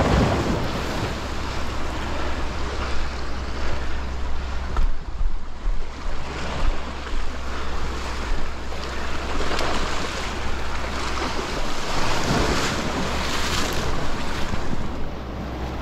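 Ocean surf washing and breaking against shoreline rocks, swelling and easing in several waves, with wind buffeting the microphone.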